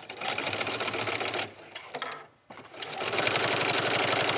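Electric sewing machine fitted with a walking foot, topstitching a fabric strap at a fast, even stitch rate. It stops for about a second after a second and a half, then runs again.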